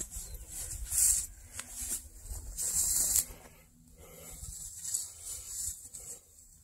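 Dry overgrown grass and foxtails swishing against legs and clothing as someone walks through them, in several separate bursts.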